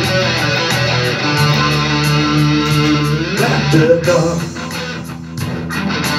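Electric guitar solo over a backing track, held notes with a note bent upward a little past three seconds in. The music dips in loudness briefly near the end.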